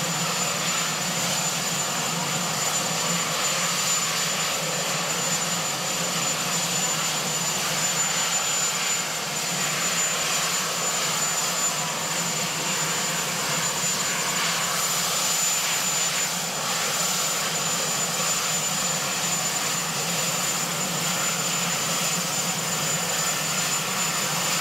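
Marine One helicopter running on the ground with its turbine engines at idle: a steady, unbroken rushing noise with a thin, constant high whine.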